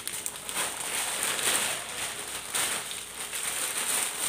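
Thin clear plastic bags crinkling and rustling in the hands as massage slippers are worked out of them, an irregular crackle.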